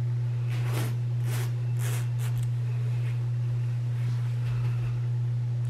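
A steady, unchanging low hum, with a few faint soft rustles of a fleece hoodie being pulled on and adjusted in the first couple of seconds.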